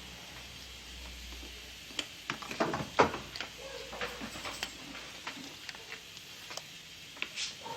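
Irregular clicks and knocks of tools and small parts being handled during electronics repair work. The loudest knock comes about three seconds in, and a low hum stops about two seconds in.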